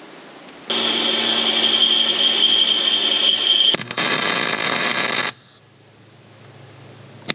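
Wire-feed welder tacking steel angle iron: the arc's steady crackling hiss in bursts, one of about three seconds and a second of about a second and a half after a brief break, with another starting right at the end.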